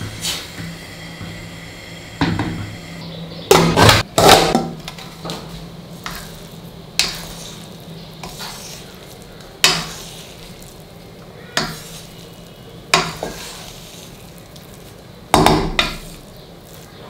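Wooden spatula stirring and fluffing cooked rice in a pressure cooker, knocking and scraping against the pot's metal side every second or two. The loudest clatter comes about four seconds in and again near the end.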